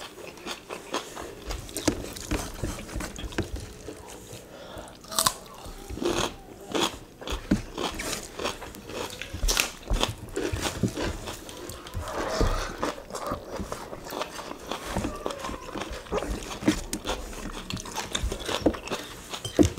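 Close-up mukbang eating sounds: two people chewing mouthfuls of rice and beef asam pedas eaten by hand. There is wet chewing and crunching, with many short clicks scattered throughout.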